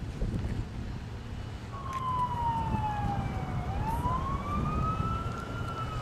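Emergency vehicle siren in a slow wail, coming in about two seconds in, its pitch falling, then rising, then falling again, over a low rumble.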